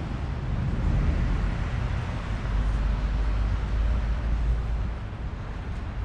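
Outdoor urban ambience: a steady low rumble with a hiss above it, easing off about five seconds in.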